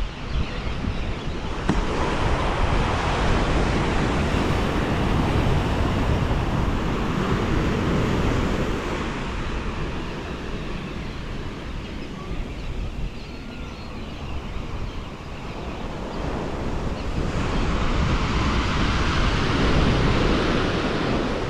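Ocean waves breaking and washing on the beach, the surf swelling, easing for a while in the middle and building again near the end, with wind buffeting the microphone.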